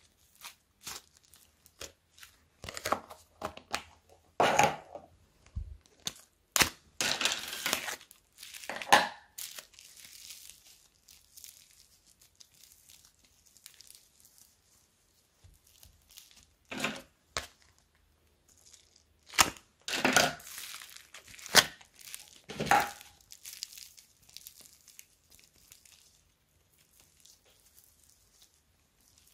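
Soft, fluffy slime being stretched and pulled apart by hand, giving irregular sticky tearing and crackling, with short sharp clicks in between. The loudest stretches come in bunches about a quarter of the way in and again past the middle.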